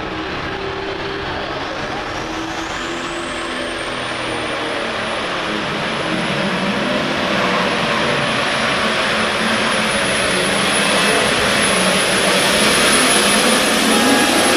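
John Deere 4560 pro stock pulling tractor's turbocharged diesel engine at full power, pulling a weight-transfer sled. The turbo whine rises over the first few seconds and then holds high, the sound growing louder toward the end. The whine falls away sharply right at the end as the power comes off.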